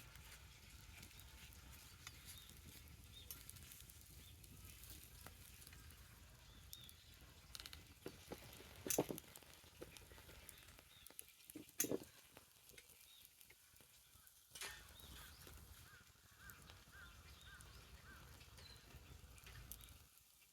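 Wood bonfire crackling faintly, with scattered small snaps and two sharp, louder pops about nine and twelve seconds in.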